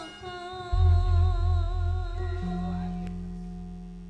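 Javanese gamelan music: a female singer holds a long wavering note that fades out about three seconds in. About a second in, a large gong is struck, its deep tone pulsing as it slowly dies away, and a second gong note joins a little past halfway.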